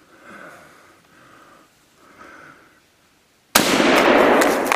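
Faint breathing close to the microphone, then, about three and a half seconds in, a single very loud rifle shot whose echo dies away slowly.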